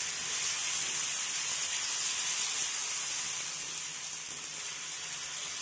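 Toor dal and rice dosa batter sizzling steadily on a hot cast-iron tawa as it is spread thin, easing off slightly toward the end.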